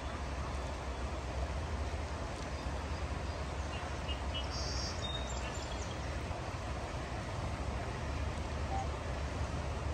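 Steady rush of flowing creek water, with a low wind rumble on the microphone and a brief high chirp about halfway through.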